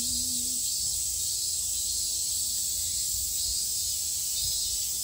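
A dense summer chorus of cicadas, a steady high shrill hiss that does not let up.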